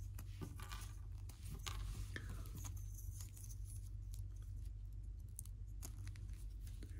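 Faint handling of a small plastic action figure: a few scattered small clicks and scrapes as clip-on claw pieces are pulled off its backpack, over a steady low hum.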